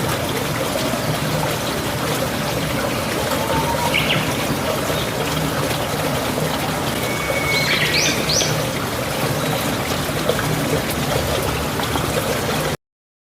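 Mountain stream water flowing steadily, with a bird chirping briefly about four seconds in and again in a quick run of notes around eight seconds in. The sound cuts off suddenly just before the end.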